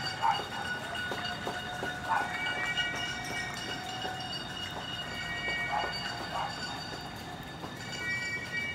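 Several horns sounding at once in long, overlapping held tones at different pitches, with short blasts breaking in every second or two, as a loud noise-making tribute to essential workers.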